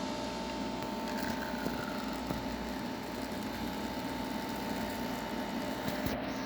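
Rocket Giotto espresso machine's pump running steadily while pulling a shot, a constant hum with several steady tones, building about 9 bar of brew pressure.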